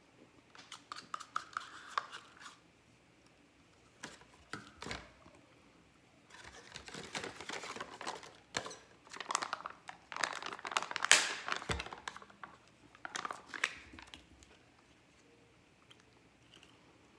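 Plastic pudding cups and their foil-lidded packaging being handled and opened: crinkling, tearing and clicking in irregular bursts, loudest about eleven seconds in.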